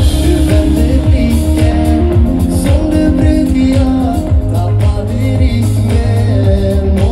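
A live pop band playing loud through a festival PA, heard from in the crowd: a male lead singer over heavy bass, drums, keyboards and guitar.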